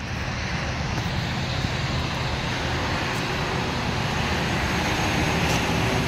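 A steady, low engine drone that grows slowly louder.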